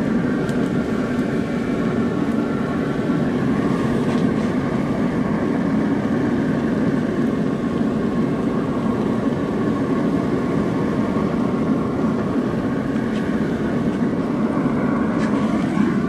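Steady rushing, rumbling noise from an open pellet grill with steaks cooking on the grate: the fire and its blower running under the open lid.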